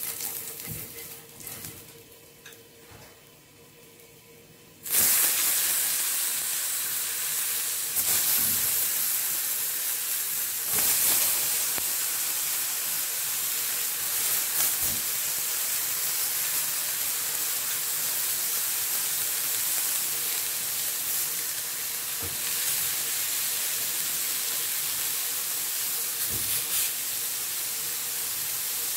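Slices of eggplant sizzling on a hot ridged grill pan. The sizzle starts suddenly about five seconds in, after a few light taps on the pan, and swells twice more as further slices go down, then holds steady.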